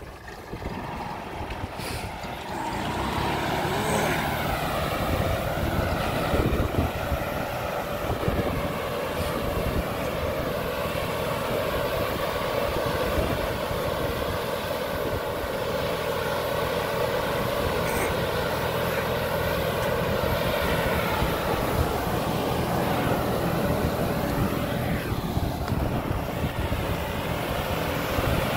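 A Kubota Neostar B2441 compact tractor's diesel engine running under load while its PTO-driven air-blast sprayer fan blows spray mist, a steady whirring drone. It grows louder over the first few seconds and then holds steady.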